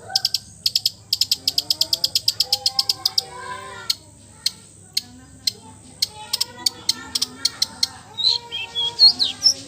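Songbird calls on a bird-tutoring track. A fast series of high chips, about eight a second, stops about three seconds in; scattered sharp ticks and lower chattering notes follow, and a few loud whistled notes sliding up and down come near the end.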